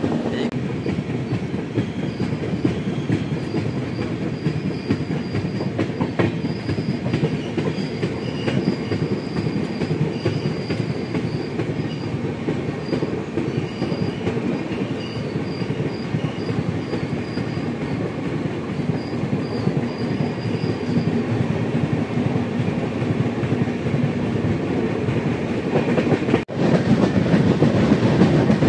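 Passenger train running on the rails: a steady rumble of wheels on the track, with a faint, broken high squeal through the first two-thirds. A brief break comes near the end, after which it runs louder.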